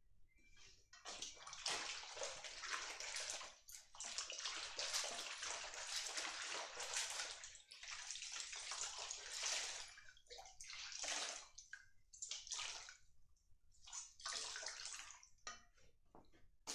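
Water sloshing and splashing in a stainless-steel basin as hands work an item through it: several seconds of continuous swishing, then a few separate shorter splashes in the second half.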